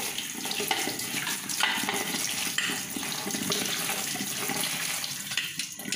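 Tap water running into a perforated aluminium colander of lemons over a stainless steel sink, with hands rubbing and turning the lemons as they are washed.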